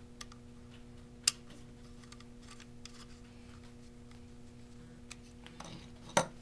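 A few small, sharp clicks of parts being handled, one distinct click about a second in and several more near the end, over a steady low electrical hum.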